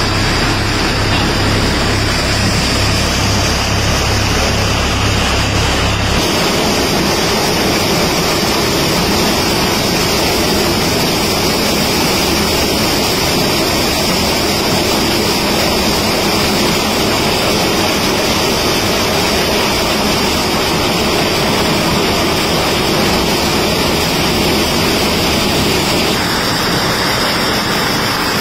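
Eicher 333 tractor's diesel engine running with a steady low thrum, cut off abruptly about six seconds in by a maize sheller running at full load: a loud, even rushing rattle of corn being shelled and kernels pouring down the chute.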